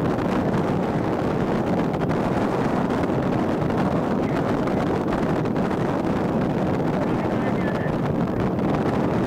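Wind blowing across a handheld camera's microphone at extreme altitude: a steady, low rush with no breaks.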